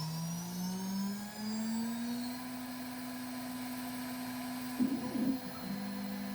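CNC router spindle spinning up with a rising whine, then running steady at about 15,000 RPM, the speed set for the V-bit engraving pass. A brief rougher noise comes in near the end.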